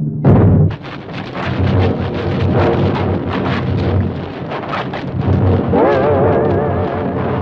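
Cartoon sound effect of a giant tree cracking and crashing down: a long rumbling crash full of splintering cracks that starts suddenly just after the start. Music wavers underneath it.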